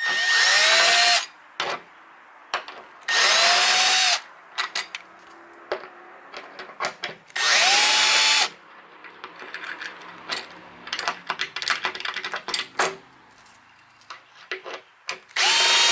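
Milwaukee M12 cordless drill run in four short trigger pulls of about a second each, its motor whine rising in pitch as it spins up each time. Light clicks and knocks of handling come in between.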